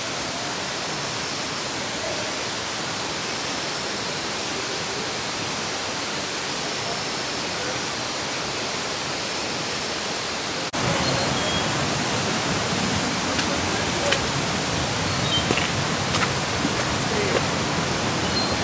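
Steady rush of a waterfall's falling water, which steps up louder at a cut about ten seconds in.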